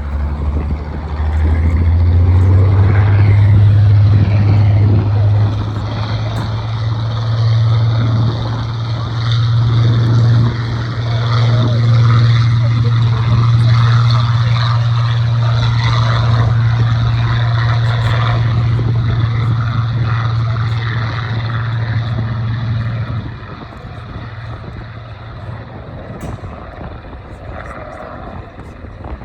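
Hawker Hurricane's Rolls-Royce Merlin V12 engine running at high power, a deep steady drone that rises about a second and a half in and drops away sharply near the end, leaving a lower rumble.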